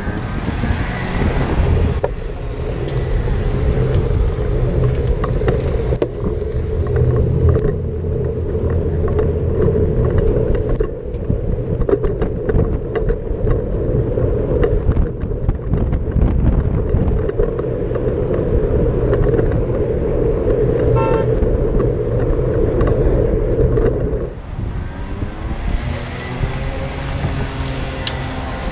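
Road traffic noise: motor vehicle engines running steadily, with a short car horn toot about two-thirds of the way through.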